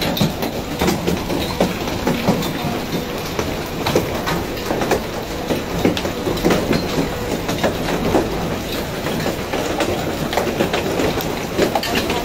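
Large hailstones pelting down in a hailstorm: a dense, irregular clatter of many impacts over a steady rushing noise.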